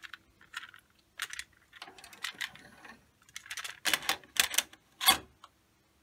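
Hard plastic clicks and clacks of a compact cassette being handled and set into the open cassette holder of a Technics RS-BX828 deck, with a sharp clack about five seconds in.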